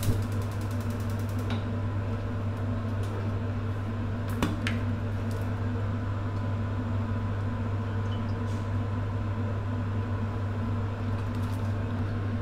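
Electric glass-top cooker, just switched on under a wok, giving a steady low electrical hum with its cooling fan running. A couple of light clicks sound over it, one about a second and a half in and one about four and a half seconds in.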